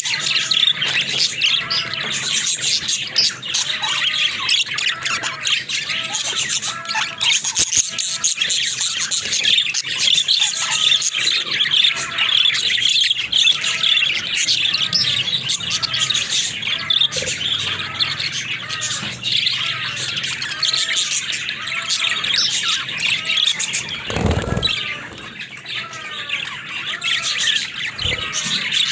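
Budgerigars chattering without pause: a dense tangle of quick chirps, warbles and squawks, with short arched calls repeating under it. A single low bump comes about four seconds before the end.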